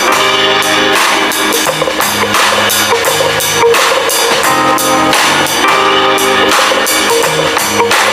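Background music with a steady drum-kit beat, bass and guitar.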